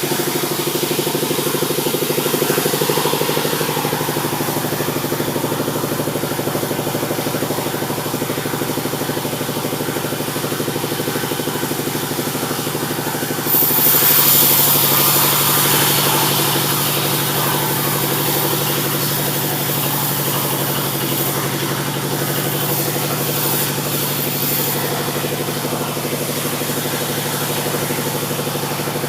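Sawmill engine running steadily, driving the saw. About halfway through, the blade cuts into the mahogany log and a sudden hissing, rasping cutting noise rises over the engine, then eases off over the next few seconds as the cut goes on.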